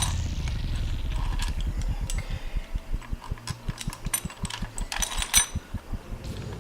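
Metal clinks of tools and engine parts as the camshaft and rocker arms are fitted back onto the cylinder head, over a low throb that slows from rapid pulses to a few a second.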